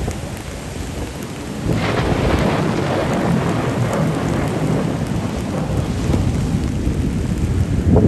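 Storm surf crashing on a pebble beach: a big breaker hits about two seconds in, and the waves then keep up a steady noise.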